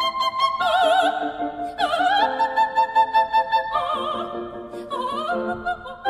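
Opera music: a high operatic voice singing long held notes with wide vibrato, over an instrumental accompaniment with a light steady tick.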